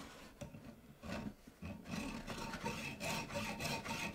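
Hacksaw cutting through antler: rasping back-and-forth strokes, faint at first, then from about halfway in a steady rhythm of about three strokes a second with a thin ringing from the blade.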